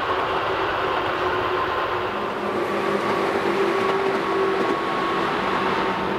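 Tobu Tojo Line electric commuter train running on the rails: a steady rumble with held whining tones over it.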